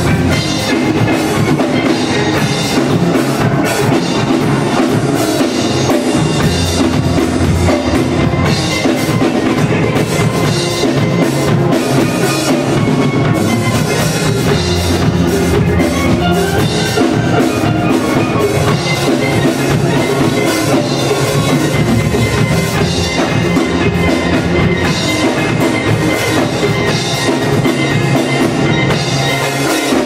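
Steel drum band playing live: a full ensemble of steelpans carrying pitched melody and chords over a steady drum beat.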